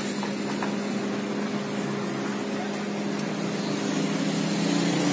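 Steady engine hum of passing street traffic over a background hiss, growing louder near the end as a vehicle draws closer.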